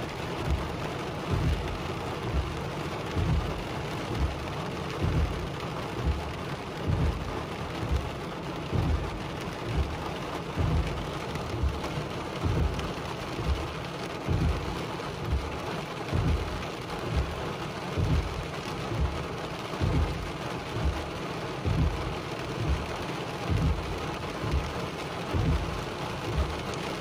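Rain pattering on a car's roof and windshield, heard from inside the car, with a low thump about once a second.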